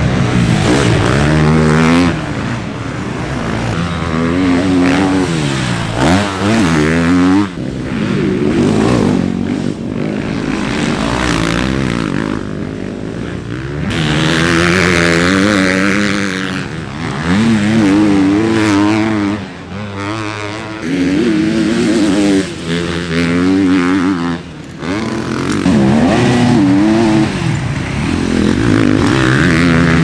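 KTM 250 SX-F four-stroke single-cylinder motocross bike racing. The engine revs up in repeated rising sweeps, and the pitch drops or briefly cuts between them as the rider shifts and rolls off the throttle.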